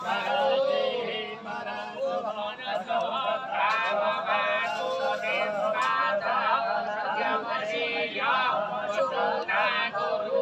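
Many voices singing and chanting together, their melodic lines overlapping.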